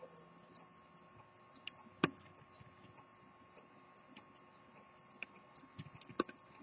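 Edmond Mathey-Tissot minute-repeater pocket watch ticking faintly and rapidly. A sharper click comes about two seconds in, and a few more clicks and knocks come near the end.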